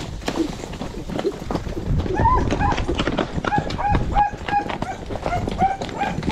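A dog yapping in a quick run of short, high barks, about three a second, starting about two seconds in, over the hoofbeats of a ridden horse.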